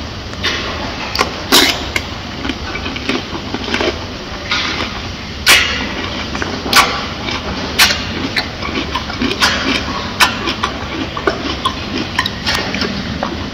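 Silverback gorilla biting and chewing a whole cucumber: irregular wet crunches and snaps, the loudest about one and a half seconds in and again about five and a half seconds in.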